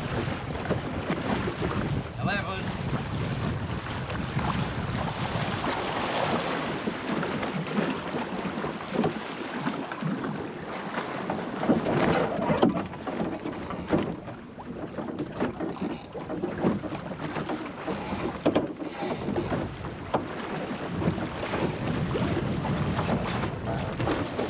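Wind buffeting the microphone and water rushing past the hull of a small sailing dinghy, a Goat Island Skiff, moving fast at about 11 knots. A few brief, sharper hits stand out about halfway through and again later.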